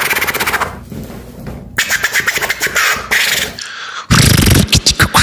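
Mouth beatboxing of turntable-scratch effects in quick, choppy strokes, with a softer stretch about a second in. Near the end, after a brief gap, comes a loud, fast run of sharp percussive sounds.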